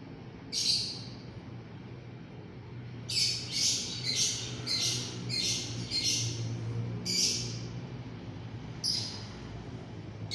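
Lovebird giving high-pitched squawks: one about half a second in, a quick run of about seven, roughly two a second, from about three seconds in, then single calls near seven and nine seconds in.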